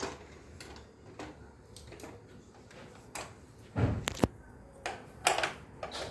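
Irregular clicks and knocks of objects being handled, loudest as a quick cluster of knocks about four seconds in and another about five seconds in.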